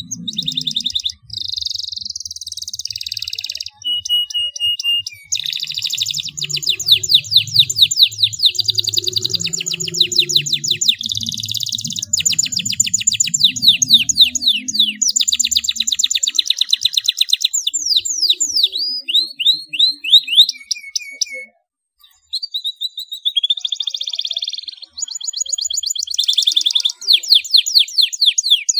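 Domestic canary singing a long song of fast rolling trills and rapid repeated descending sweeps, high-pitched, with a brief pause a little after the middle.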